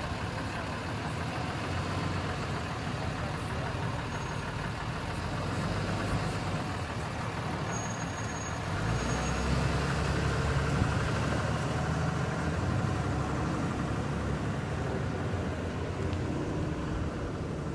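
Flatbed tow truck's engine running as it pulls away and drives off, getting louder from about nine seconds in as it accelerates, over steady street traffic noise.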